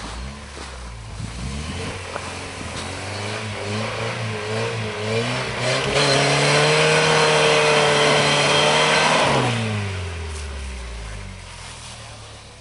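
Toyota 4x4's engine revving hard under load in snow: the revs waver and climb, hold high and loud for about three seconds, then drop back toward idle near the end.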